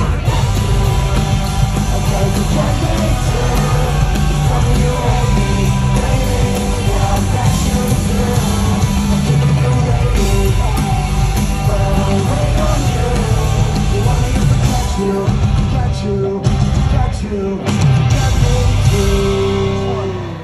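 Loud rock music with a singer, played live at a concert.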